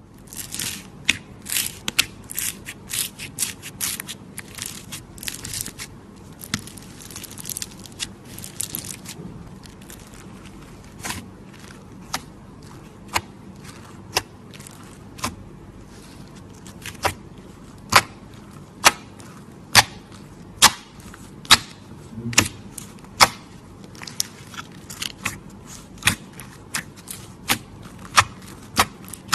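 Slime being pressed and stretched by hand, giving sharp crackling pops and clicks. They come thick and fast for the first nine seconds or so, then thin out into a steady pop about once a second.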